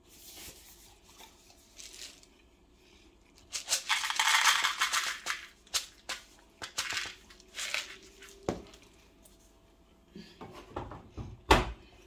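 Fairy in-wash scent booster beads rattling in and pouring from their cardboard tub. There is a dense rush of rattling about four seconds in, then separate clicks and knocks, the loudest near the end.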